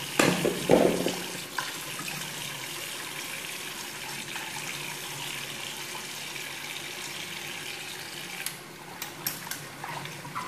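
Bathroom tap running in a steady stream into a ceramic washbasin, the water splashing over hands and a fitness band held under it. A few brief louder bumps come in the first second, and sharp splashes near the end as the hands move in the stream.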